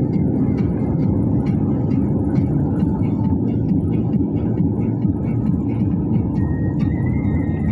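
Steady low rumble of a moving vehicle, heard from inside its cabin: engine and road noise.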